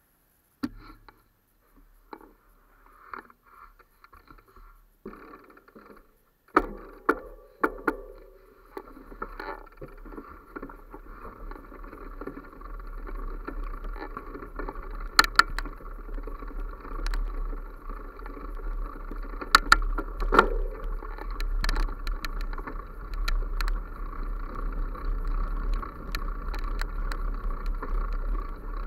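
Moving along a dirt forest path with the camera: a steady rumble that sets in about six seconds in and grows louder, with low wind buffeting on the microphone and a few sharp knocks from the camera being jostled.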